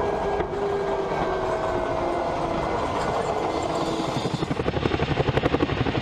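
A tank rolling over a floating ribbon bridge right above the deck: tracks rumbling on the bridge sections with a steady engine whine that falls slightly in pitch as it passes over. About four and a half seconds in, it gives way to the fast even beat of a tandem-rotor helicopter's blades.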